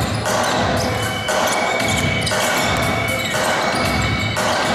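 Basketball bouncing on a hard court during play, a run of sharp impacts over a dense, continuous arena background noise.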